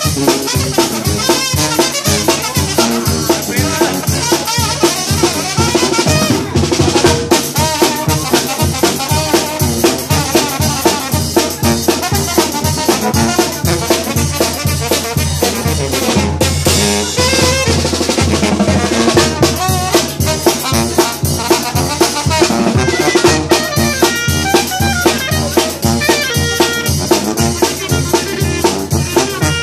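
Live Mexican banda music: trumpets, trombones and sousaphone playing over drums keeping a steady beat.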